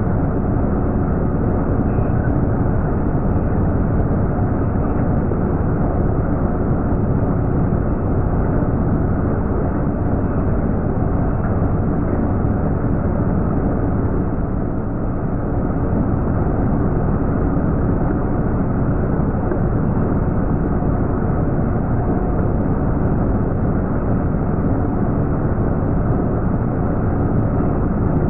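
Metal lathe running under a cut, a steady dense low rumble from the spindle, drive and cutting tool with a faint steady hum in it.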